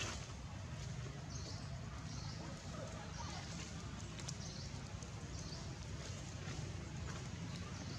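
Outdoor background noise: a steady low rumble with faint short high chirps recurring every half second or so, and a few light clicks.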